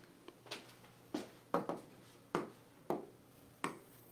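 Keys of a handheld scientific calculator being pressed: about seven short, sharp clicks at uneven intervals while the coefficients of two simultaneous equations are entered and solved.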